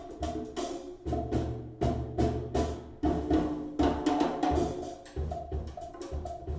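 Percussion music, wood-block-like knocks and drums in a quick, busy rhythm with deep bass thumps, played back through Edifier S3000 Pro active bookshelf speakers and picked up by a microphone in an untreated room.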